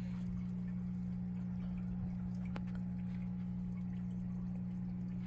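Steady low hum, with a faint click about two and a half seconds in.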